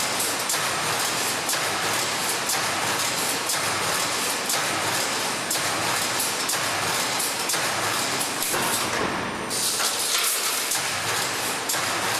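Steady mechanical running noise of a wire spacer welding machine in operation, a dense hiss with faint irregular clicks. The high part of the hiss dulls briefly about nine seconds in.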